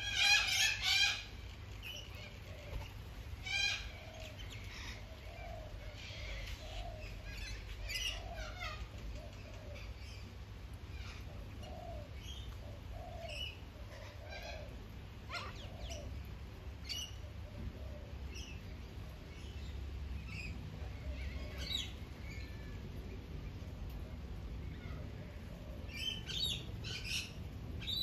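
Wild birds calling around a feeder: scattered short chirps and calls throughout, with louder clusters of high calls in the first second and again near the end. A steady low rumble runs underneath.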